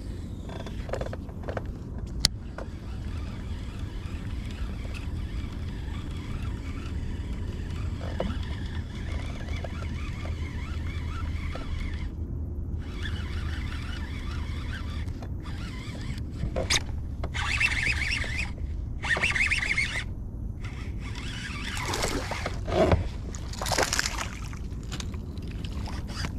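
Steady low rumble of water and air around a small boat, with water sloshing, a sharp click about two seconds in, and a few short hissing bursts in the second half.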